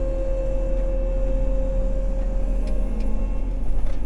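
Farm machinery engine running steadily under load, a constant low drone with a steady high whine that fades out a little past halfway.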